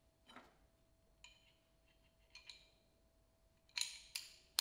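Metal hand tools being handled and set down on a workbench: a few light metallic clinks, two with a brief ring, then two sharper clacks near the end.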